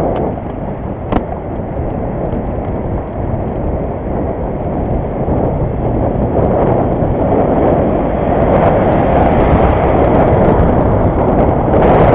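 Steady wind and road noise on the microphone while riding a bicycle, growing louder about two-thirds of the way through, with one sharp click about a second in.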